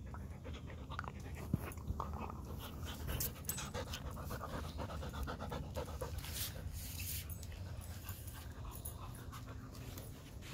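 Alaskan husky panting rapidly close to the microphone.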